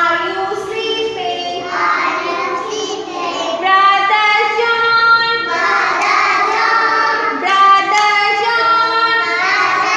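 A group of young children singing a song together, in held notes that step up and down with short breaks between lines.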